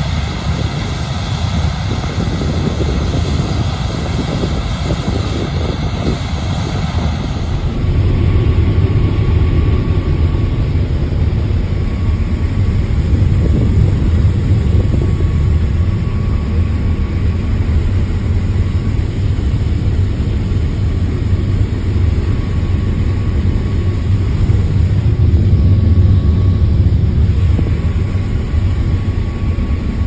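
Combine harvester and tractor engines running in the field during unloading on the go. After a cut about eight seconds in, this gives way to a steady low engine drone heard from inside a combine's cab as it harvests standing corn.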